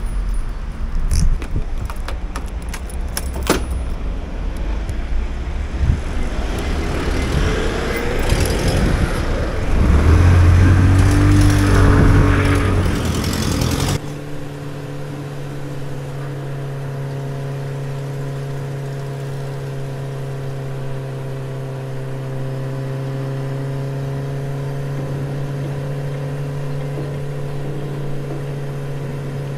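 A motor scooter. First come clicks and rustling, then a pitched engine sound that rises and revs. About halfway through the sound changes abruptly to a steady, even hum.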